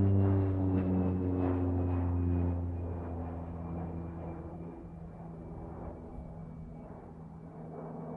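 Beechcraft King Air twin-turboprop airplane moving away after passing overhead: a low propeller drone with a thin high turbine whine, both sliding slowly down in pitch and fading away after about three seconds.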